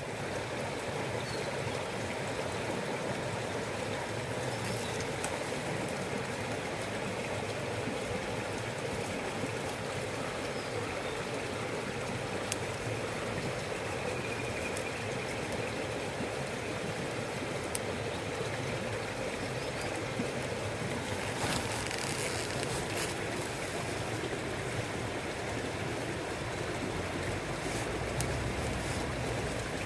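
Wood campfire burning in a fire pit: a steady rushing hiss with a few scattered sharp crackles.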